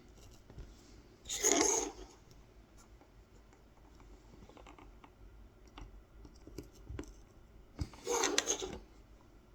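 Kolrosing knife cutting lines into a wooden honey dipper: two cutting strokes of under a second each, about a second and a half in and again near the end, with faint small clicks and scrapes of the blade on the wood between.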